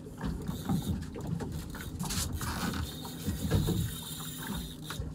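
Irregular thumps and knocks of someone moving about on a small fibreglass boat, with a short rushing hiss about two seconds in.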